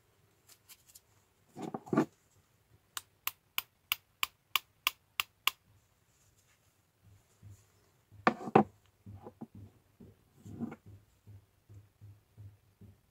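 Metal tool parts and a brass cartridge-case handle being handled and set down on a workbench: a knock about 2 s in and a louder one about 8.5 s in, with a run of nine light, evenly spaced clicks, about three a second, in between.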